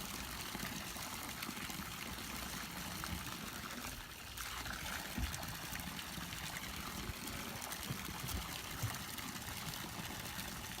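Steady trickling, pouring water, with irregular low thumps underneath.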